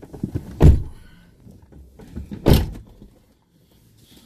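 Two vehicle doors slammed shut, one about half a second in and one about two seconds later, with rustling and shuffling of people settling into the seats.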